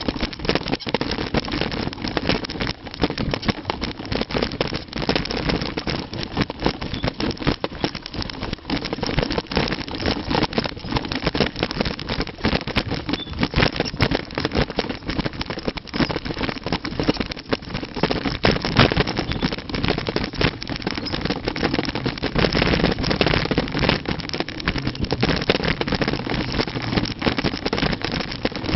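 Mountain bike riding downhill on a rough trail: a steady rush of wind and tyre noise with a dense rattle of small knocks.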